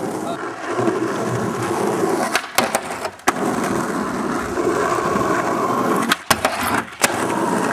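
Skateboard wheels rolling continuously, with sharp clacks of the board: a pair near the middle and a cluster of several near the end.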